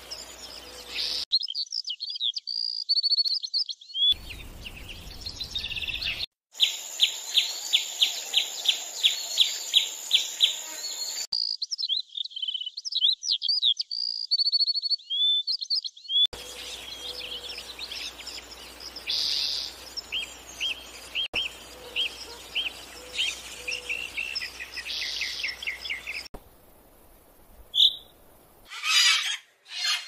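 Several recordings of small songbirds spliced one after another, with abrupt cuts between them. Chirps and twitters, then a run of evenly spaced loud notes about three a second, and later a series of repeated call notes.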